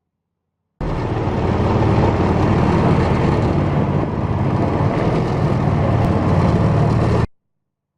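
A motor running steadily with a heavy low rumble, starting and stopping abruptly.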